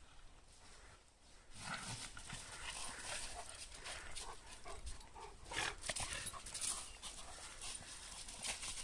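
A husky and a Staffordshire bull terrier playing rough: short dog vocal noises over paws scuffling and rustling through dry fallen leaves, starting about a second and a half in.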